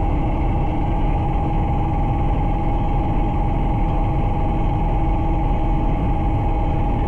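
Bristell Classic light aircraft's piston engine and propeller running steadily at low power while taxiing after landing, a constant drone with a steady high-pitched tone over it.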